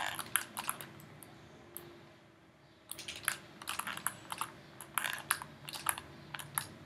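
Quick clicks from a computer mouse and keyboard, in two runs with a pause of about two seconds between them, over a faint steady hum.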